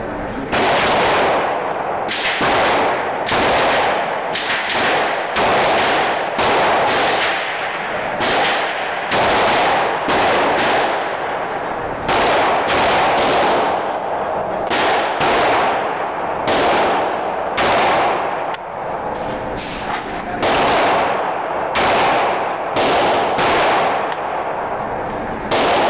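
Semi-automatic pistol shots fired one after another, about one to two a second, on an indoor range whose echo fills the gaps between shots.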